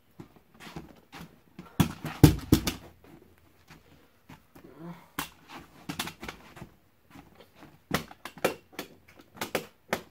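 Scattered knocks, taps and rustling from a person moving about and handling things, with a cluster of louder knocks about two seconds in.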